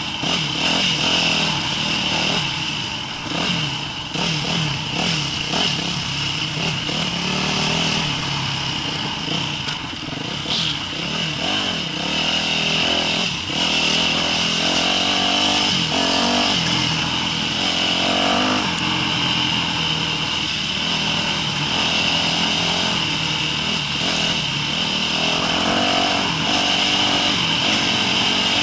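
Yamaha YZ250F dirt bike's single-cylinder four-stroke engine running under way on a trail ride, its revs rising and falling as the throttle is worked.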